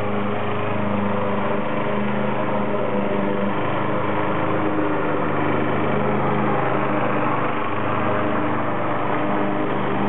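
Radio-controlled lawn mower running steadily as it makes a full-speed pass over grass, a continuous even drone.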